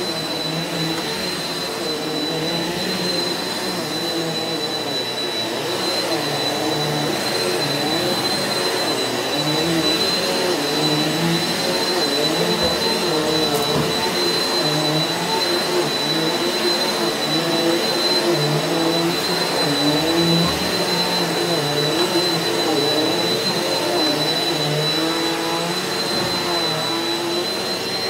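Eureka NEU180B Power Speed bagless upright vacuum running steadily over carpet as a dry pre-vacuum before steam cleaning, with a constant high motor whine and a lower hum that wavers up and down in pitch.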